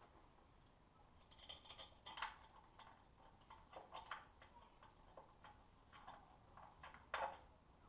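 Faint, irregular clicks and light taps of hand tools and parts being worked on the engine, with one louder knock about seven seconds in.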